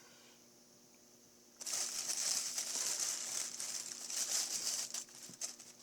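Plastic packaging crinkling and rustling for about three and a half seconds, starting about a second and a half in.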